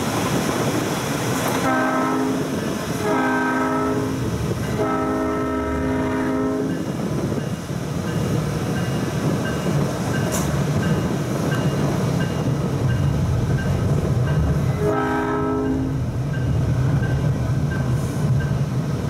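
South Shore Line electric passenger train's horn sounding three blasts in quick succession, the third the longest, then one more blast about fifteen seconds in, over the steady rumble of the train running on the rails.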